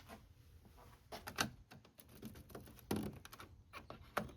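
Old, brittle plastic push-type retaining clips on a car's grille being pulled up and out, giving a few scattered sharp clicks and light plastic knocks.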